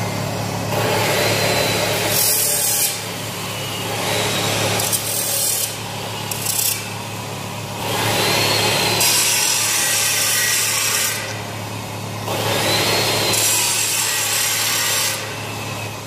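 A white marker scratching across rough steel bars as numbers are written on them, in about five separate bouts of one to three seconds each. A steady hum runs underneath.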